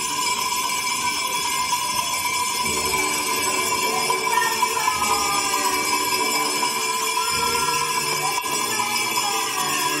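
Many small hand bells ringing at once from surrounding windows and balconies, in a continuous dense chorus of overlapping high-pitched ringing.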